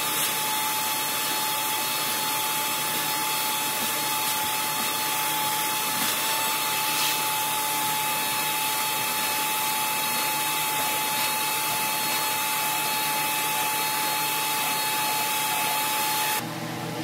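A machine running with a steady hiss and a thin whistle, cutting off suddenly near the end and leaving a quieter hum.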